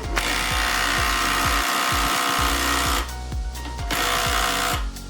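Ryobi 18-volt brushed 1/2-inch cordless impact wrench hammering as it drives a bolt tight, a loud burst of about three seconds, then starting again near the end. Background music with a steady beat runs underneath.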